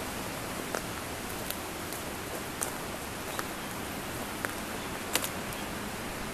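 Steady outdoor wind noise with a few scattered light clicks.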